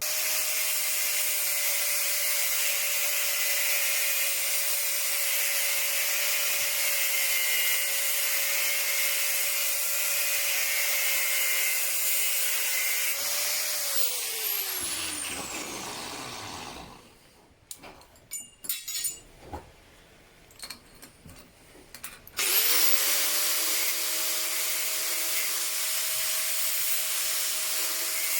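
High-speed power tool cutting into a metal hinge, running steadily with a high whine and a grinding hiss. About 13 seconds in it is switched off and its whine falls as it winds down. A few light clicks follow, and about 22 seconds in it spins back up and cuts again.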